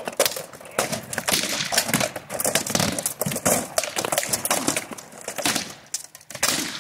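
Rattan swords striking wooden shields and steel armour in a rapid, irregular flurry of knocks and cracks, with armour rattling as the fighters move.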